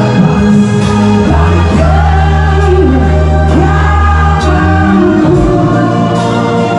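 Live band music with a lead vocalist singing over sustained bass and keyboard chords.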